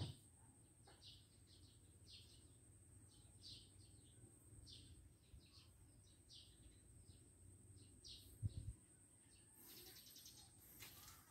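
Faint small-bird chirps, short high notes repeating every half second or so, over a low background hum. A brief low thump comes about eight and a half seconds in.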